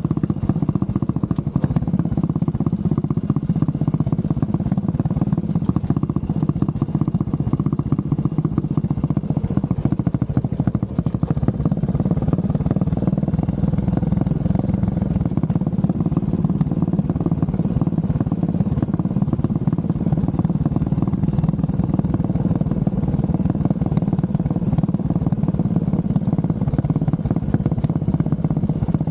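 Honda CB400SS's air-cooled single-cylinder engine running steadily, a dense, even beat with no revving up or down.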